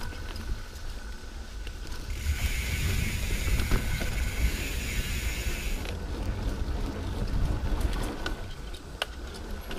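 Wind rumbling on the microphone of a mountain bike being ridden on a trail, with a steady hiss from about two to six seconds in and a few light knocks.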